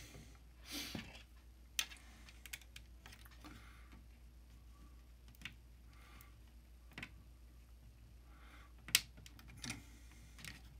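Scattered light clicks and rustling of hands working a small screwdriver and plastic fan-duct parts on a 3D printer's print head while driving small machine screws into the plastic. The sharpest click comes about nine seconds in.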